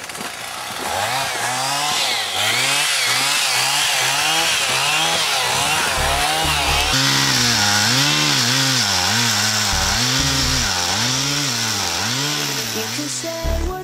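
Chainsaw cutting into a tree, its engine pitch rising and falling over and over: about twice a second at first, then slower swings about once a second in the second half.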